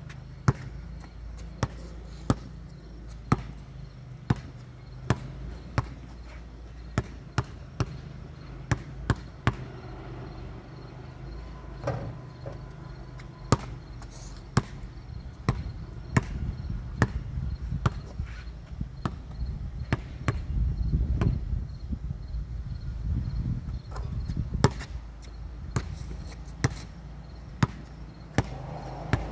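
Sharp knocks repeating at an uneven pace of roughly one or two a second, over a steady low hum; a low rumble swells for a few seconds past the middle.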